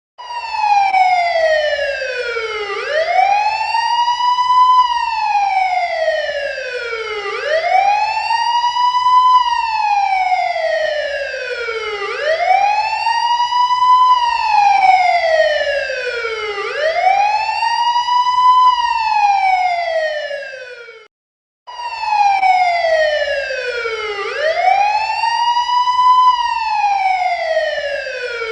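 Police siren wailing. Its pitch slides slowly down for about two and a half seconds, then swoops back up in about two, repeating roughly every four and a half seconds. It cuts out for about half a second roughly three-quarters of the way through, then starts again.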